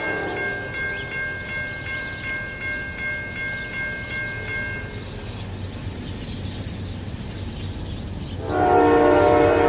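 Grade-crossing warning bell ringing in steady, rapid strokes, falling silent about halfway through once the gates are down. A Norfolk Southern freight locomotive's low diesel rumble builds underneath. Near the end its air horn sounds loud and sustained, a chord of several notes.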